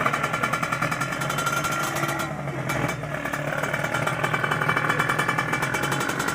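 Motorcycle engine running with a rapid, even pulse.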